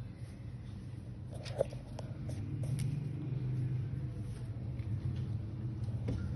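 A low steady rumble, a little louder from about two and a half seconds in, with a few faint clicks, the sharpest about a second and a half in.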